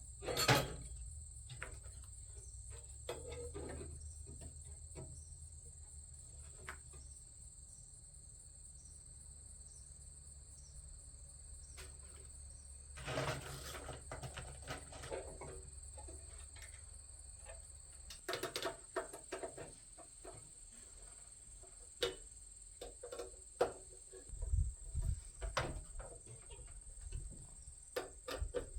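Scattered clicks, taps and knocks of metal smoker parts and screws being handled and fitted during assembly, with a few dull thuds near the end. Under it, a steady high chirring of crickets.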